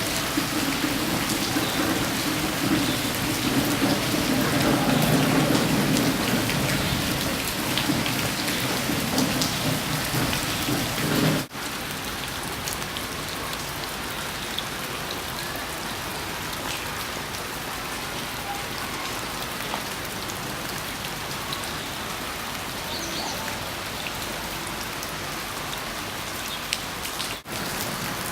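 Steady rain falling, a dense even hiss of drops. It breaks off for a moment about eleven seconds in and again near the end, and after the first break it is quieter and thinner.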